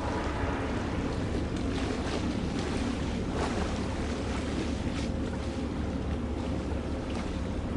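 Wind buffeting the microphone over a steady low rumble and the wash of water, typical of filming a ship at sea.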